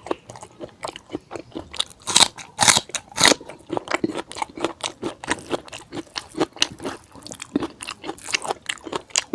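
A person chewing a mouthful of fatty pork curry with bamboo shoot and rice, close to the microphone: a fast run of short sharp chewing clicks, loudest between about two and three and a half seconds in.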